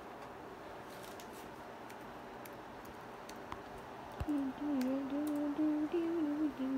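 Light clicking of a laptop keyboard being typed on, then about four seconds in a person starts humming a tune in held notes that step up and down.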